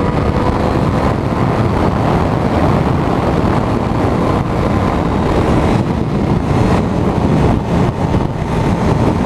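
Riding noise from a Triumph Daytona 675R sport bike: wind rushing over the microphone with the inline three-cylinder engine running underneath, holding a steady level.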